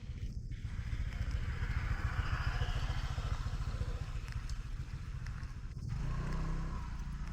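A motor vehicle passing on the street: a low engine rumble with road noise that swells and fades. About six seconds in, another engine hum starts.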